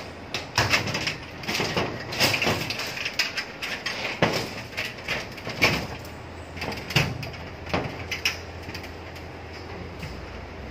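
Aluminium screen-door frame strips and tracks being handled, clattering and scraping against each other and the frame in a run of irregular clanks and clicks.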